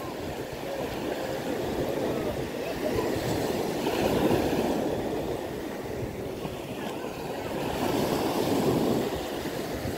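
Waves washing in on a beach, a steady rushing that swells and fades every few seconds.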